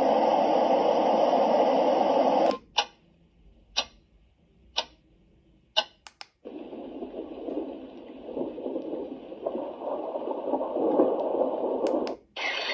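A portable white noise machine plays a steady noise sound that cuts off suddenly. Four short button sounds follow about a second apart as it steps through its sounds. A different, rougher noise sound then plays for about six seconds and stops, with another sound starting near the end.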